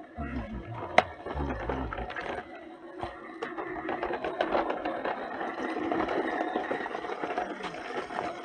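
A small motor whirring steadily, with a low, gliding rumble in the first two seconds and one sharp click about a second in.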